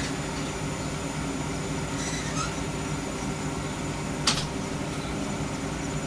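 A steady low mechanical hum with several fixed tones, with a faint brief squeak about two seconds in and a sharp click a little after four seconds.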